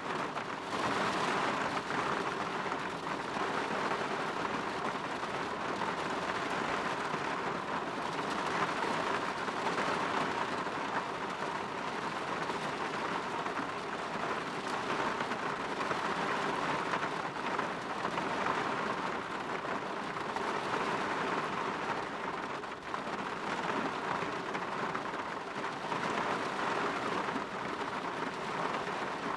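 Rain falling steadily against a window, an even, unbroken hiss.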